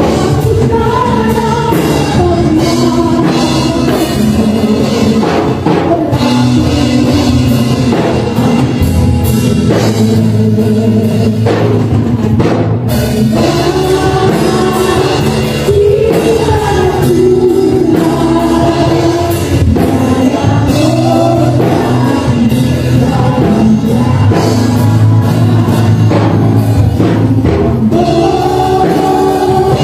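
A woman sings a Tagalog worship song into a microphone, backed by a live band with electric guitar and bass guitar.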